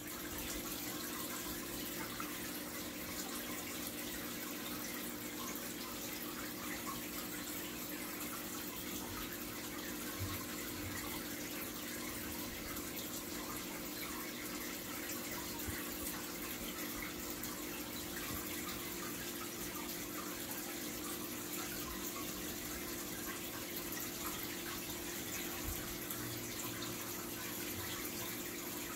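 Aquarium filter running: a steady trickle of water with a low hum from its pump.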